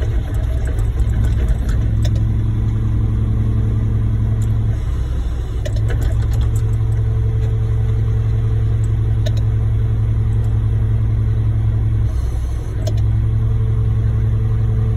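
Diesel engine of a ready-mix concrete truck running steadily at raised revs, with two brief dips in pitch and level, about five seconds in and again near the end.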